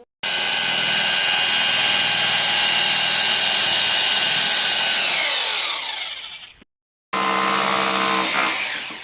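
Corded electric drill running free at full speed, then the trigger is released and the motor winds down with a falling whine. After a short break it runs again for about two seconds and winds down near the end.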